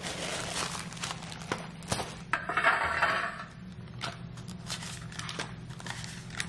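Plastic wrapper crinkling as a stack of paper tulip muffin liners is pulled out, then the paper liners rustling as they are separated and set into a metal muffin tin. The loudest crinkle comes about two and a half seconds in; the rest is small, scattered rustles and taps.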